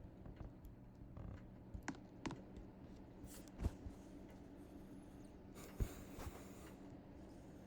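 Low, steady hum of ceiling fan motors running, with scattered light clicks and two sharper knocks, one about midway and one near three quarters of the way through.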